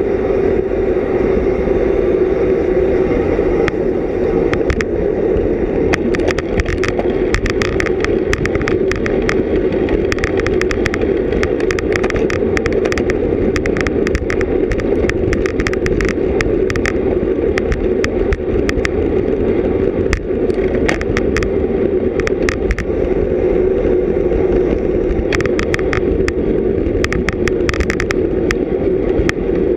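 Wind and road noise from a road bicycle riding at race speed, a steady rush with wind on the microphone. Through most of the middle come clusters of rapid ticking.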